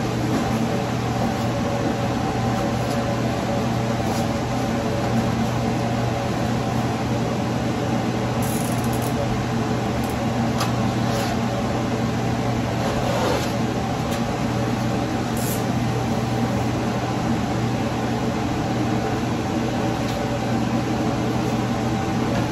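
A steady mechanical hum with a few faint rustles and crinkles of wallpaper being handled and smoothed against the wall.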